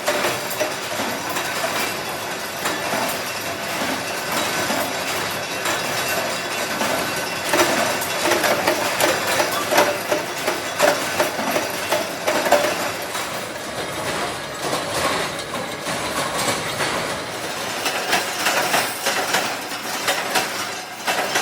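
Factory machinery running, a steady metallic clatter with many small irregular clicks and knocks.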